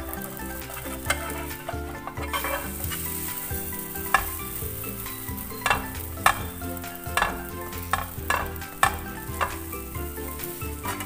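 Hotteok dough frying in oil in a nonstick pan, with a steady sizzle that grows stronger about two seconds in. A slotted metal spatula turns and presses the pancake, clicking and scraping sharply against the pan several times in the second half.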